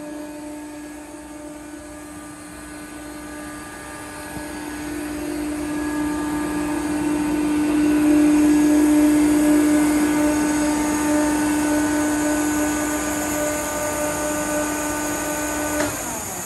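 HWH EC7 10 hp rotary screw air compressor running with a steady hum and whine at zero pressure while it counts down through its stopping sequence. Near the end the motor shuts off with a click and the whine drops away.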